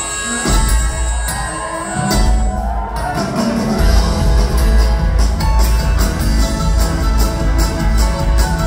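A live string band playing loud through a concert hall PA, with fiddle, acoustic guitars, upright bass and drums and a heavy bass end.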